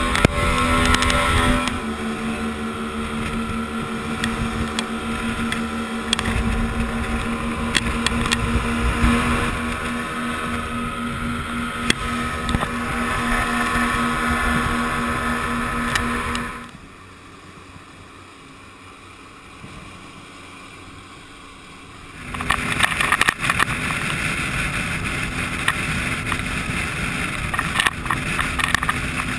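A rigid inflatable boat's 90 hp outboard motor running under way, a steady drone. A little past halfway the sound falls to a low level for about five seconds, then comes back as a rushing noise with sharp knocks.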